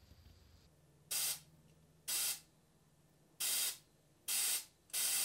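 Compressed air hissing from a pneumatic undercoating spray gun as its trigger is pulled in short blasts. There are four quick blasts about a second apart, then a longer one near the end, as the gun is test-fired at a low 35 psi.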